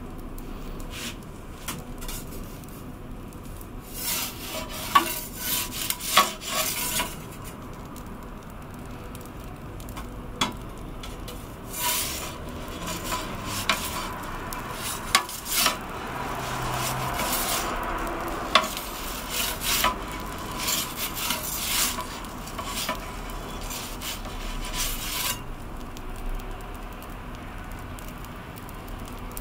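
Metal pizza turning peel scraping and clinking against the stone floor of an Ooni Koda 16 gas pizza oven as the pizza is turned mid-bake, in scattered bursts, over the steady hiss of the gas burner.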